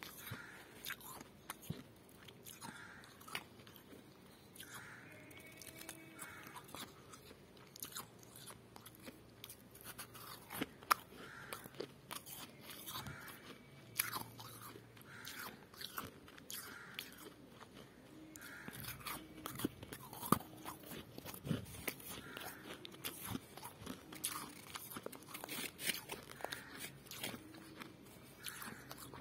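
Freezer frost being bitten and chewed, crunching in irregular sharp crackles with a few louder snaps.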